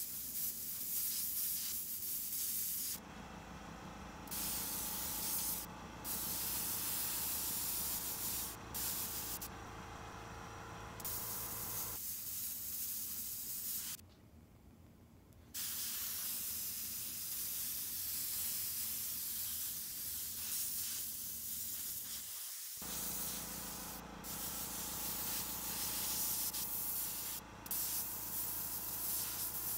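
Siphon-feed airbrush spraying paint: a steady hiss of air that stops briefly several times and pauses for a second or two about 14 seconds in. A steady low hum runs beneath.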